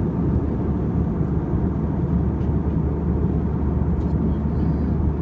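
Airliner cabin noise in flight: a steady low rumble of the engines and the air rushing past the fuselage, heard from a window seat.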